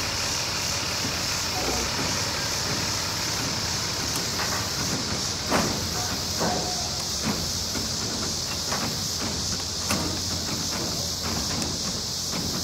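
Steady rushing of a fast, swollen river in flood, with a strong even high hiss over a low rumble. A few short knocks stand out, one about halfway through and another near the end.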